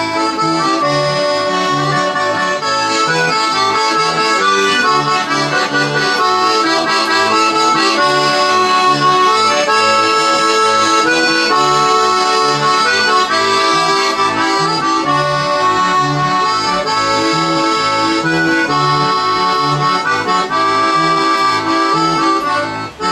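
Instrumental music: held chords over a pulsing bass line, with a brief drop in level near the end.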